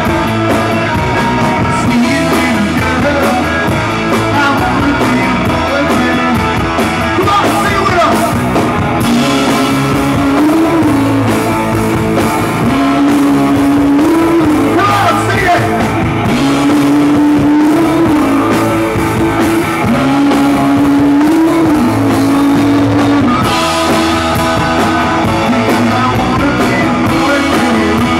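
Live punk rock band playing: electric guitar, bass guitar and drums under a male lead vocal.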